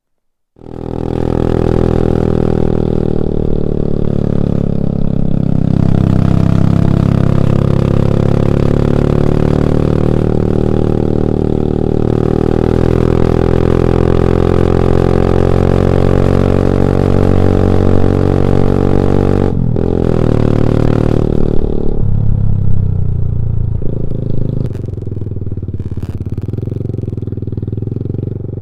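Motorcycle engine running while riding, its pitch rising and falling, with wind noise on the microphone. The sound starts abruptly about half a second in, breaks off briefly about twenty seconds in, and carries a lower note from about twenty-two seconds on.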